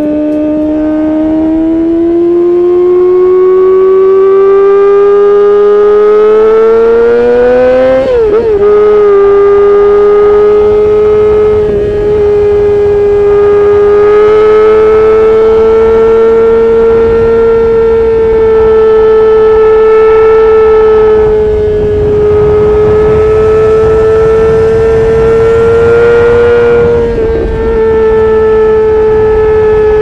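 2019 Yamaha R6's 599 cc inline-four engine through an Akrapovic Evolution Racing exhaust, running at very high revs under way: its high wail climbs steadily for about eight seconds, drops a step at an upshift, then holds high and nearly steady, easing off briefly three times.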